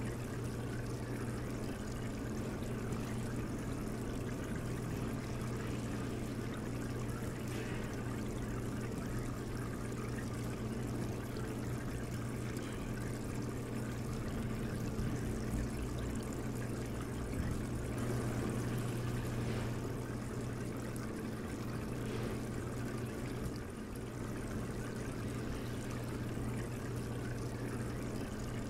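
Steady trickling, pouring water sound of an aquarium video playing through a television's speakers, with a steady low hum underneath.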